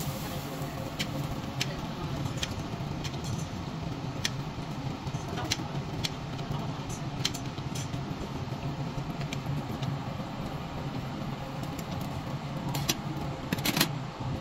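Beef intestines sizzling on a charcoal tabletop grill over a steady low hum, with scattered sharp metal clicks of tongs and scissors against the grill mesh and plates, a few in quick succession near the end.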